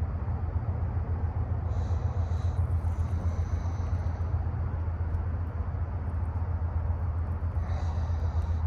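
Steady low rumble throughout, with faint high-pitched sounds briefly about two seconds in and again near the end.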